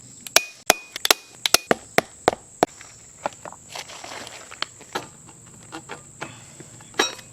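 An irregular run of sharp clicks and snaps, several a second for the first three seconds and sparser after that, over a steady high-pitched whine.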